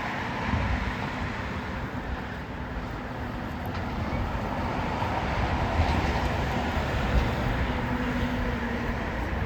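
Mowrator battery-powered remote-control lawn mower running, a steady motor whir over a low rumble.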